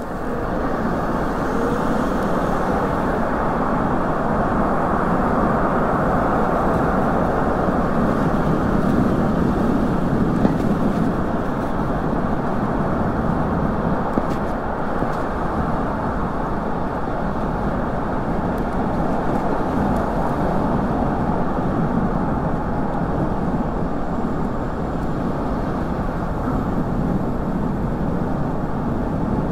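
Steady wind rush on the microphone and road noise from riding a bicycle along a city street, with car traffic around.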